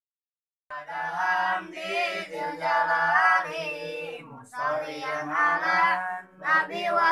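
A group of boys chanting memorised verses of a kitab in unison to a sung melody. The chanting starts under a second in and pauses briefly between lines twice.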